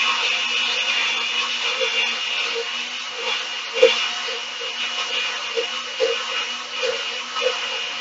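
Countertop blender running, churning a chocolate-and-egg mixture as hot coffee is streamed in through the lid opening: a steady whine with a light, regular knocking about twice a second and one sharper knock about four seconds in.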